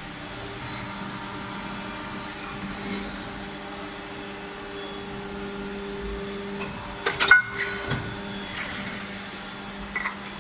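Plastic injection moulding machine running a six-cavity cap mould, with a steady mechanical hum. A quick cluster of sharp metallic clanks about seven seconds in and two lighter knocks near the end fit the mould cycling.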